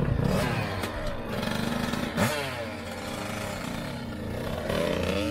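Dirt bike engines revving up and down, with a sharp rise and fall in pitch about two seconds in and another climb near the end.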